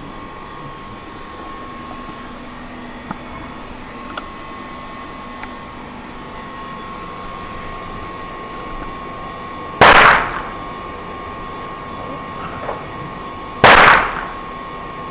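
Two shots from an Uberti 1873 lever-action rifle, about four seconds apart, each loud and sharp with a short ringing tail. A few faint clicks come before them.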